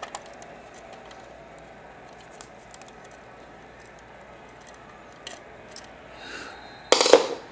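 Faint scattered clicks and small scrapes of a part being unscrewed and handled on a metal elevator button panel, with one sharper click about five seconds in and a short, louder clatter near the end.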